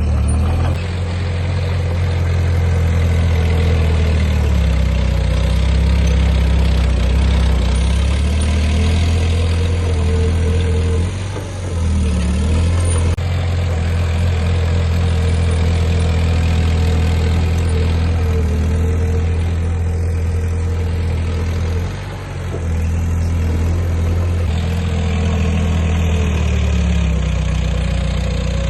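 Heavy diesel engine of earthmoving equipment running steadily, with a deep rumble, briefly dropping in level about eleven seconds in and again at about twenty-two seconds.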